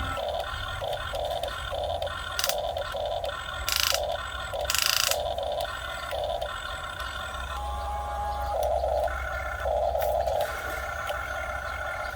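Small electric gear motors of a Huina 1550 RC excavator whirring in short stop-start bursts as its controls are worked, with two brief scraping hisses about four and five seconds in.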